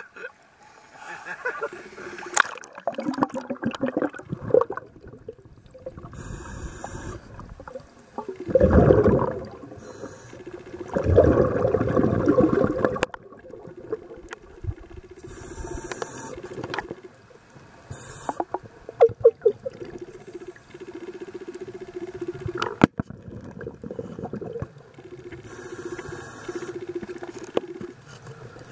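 Underwater scuba breathing through a regulator: short hisses of inhaled air and bursts of exhaled bubbles rushing out, the loudest about nine seconds in and again from about eleven to thirteen seconds. Scattered sharp clicks and knocks run through it.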